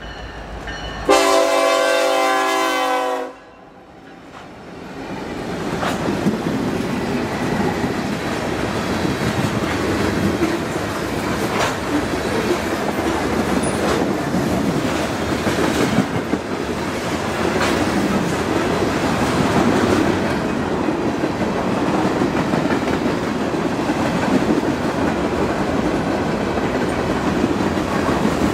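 A diesel freight locomotive horn sounds one blast of about two seconds, about a second in, and cuts off suddenly. Then the steady rumble and clatter of a freight train rolling past builds up, with occasional sharp clanks from the wheels and cars.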